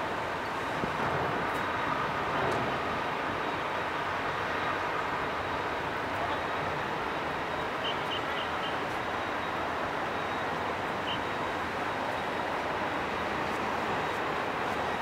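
Steady traffic noise of cars and lorries rolling off a ro-ro ferry's stern ramps onto the quay, with a run of four short high beeps about eight seconds in and one more a few seconds later.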